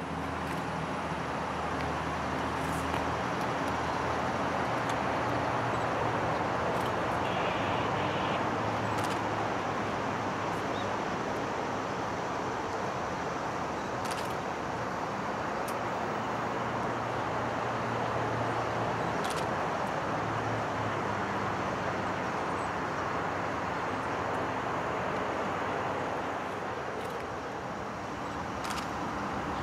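A train running by: a steady rolling rumble of wheels on rail with a low diesel engine hum underneath and a few sharp clicks.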